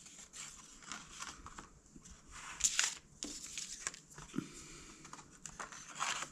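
Packaging crinkling and rustling in irregular bursts as it is handled by hand, loudest about two and a half to three seconds in.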